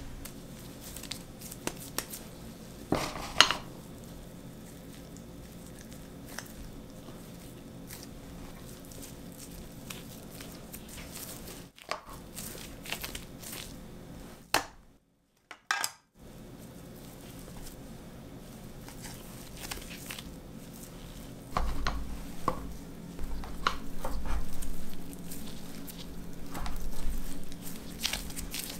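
Kitchen handling sounds: light knocks and clicks of a plastic tray, glass bowl and mug being touched, and soft handling of sweet red bean paste and chestnut pieces in gloved hands, with a sharp knock about three seconds in and duller bumps in the last several seconds. A low steady hum runs underneath.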